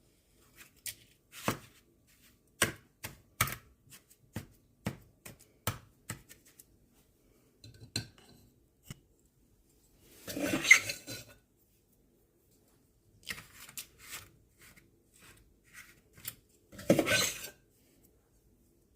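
A small scoop scraping and tapping in a bowl of damp washing soda and borax mixture and against ice cube trays as it portions it out. A quick run of sharp taps and clicks comes first, then two louder scrapes of about a second each, about ten seconds in and near the end.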